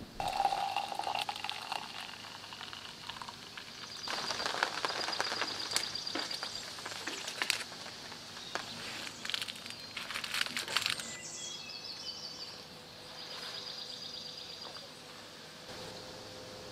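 Outdoor ambience with birds calling and insects trilling in repeated high pulses, over scattered sharp crackles and clicks.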